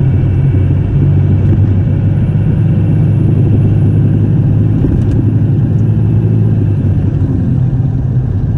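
Heard from inside the cab with the windows down: a 5.9 L Cummins 24-valve inline-six diesel cruising steadily at about 30 mph, a steady engine drone mixed with road and wind noise. From about two seconds in until about seven seconds there is a faint high whistle from the HX35 turbo, which is running without its silencer ring.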